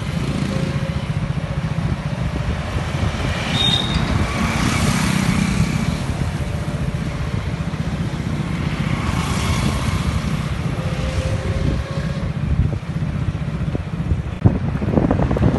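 Street traffic heard from a moving vehicle: a steady low engine-and-road rumble, with motorbikes and cars passing every few seconds and a brief high chirp a little under four seconds in.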